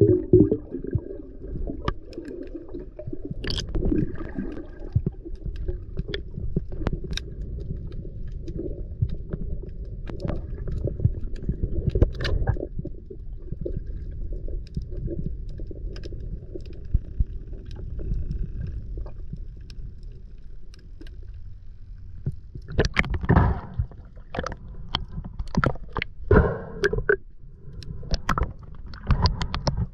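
Underwater sound picked up by a camera in a waterproof housing: a steady muffled rumble of moving water with scattered sharp clicks, and a few louder rushes of noise near the end.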